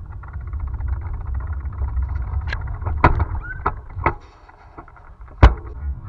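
Low wind and road rumble from a camera on the move, fading about four seconds in as it slows to a stop. Several sharp clicks and knocks come through it, the loudest a knock about five and a half seconds in, with a brief squeak near the middle.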